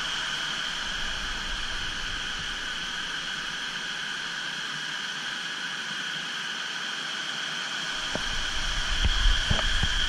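Steady rushing hiss of cascading waterfall water. About eight seconds in, a low rumble and a few short knocks come in.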